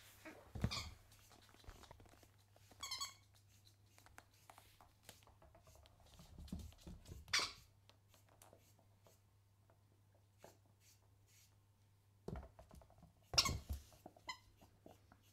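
Australian shepherd puppy playing with a small red toy ball on a wooden floor: a couple of short, high squeaks from the toy amid scattered knocks and scuffles, the loudest knock a little before the end.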